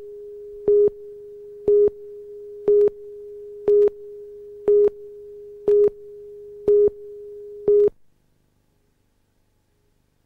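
Television countdown leader tone: one steady tone with a louder beep on it once a second, eight beeps in all, cutting off about eight seconds in.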